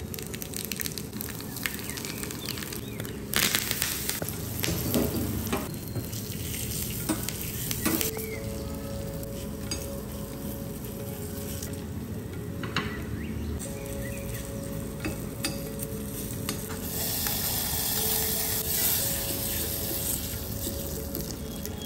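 Tempering sizzling in hot oil in a small iron tadka pan: cumin seeds, then black pepper and curry leaves, stirred with a metal spoon. The sizzling comes in louder bursts with spoon scrapes, and swells again in the later part.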